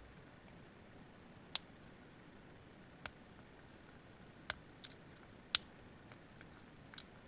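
Small sharp clicks from picking a Master Lock 141 padlock: the pick and tension tool working in the four-pin keyway, about six irregular clicks a second or so apart.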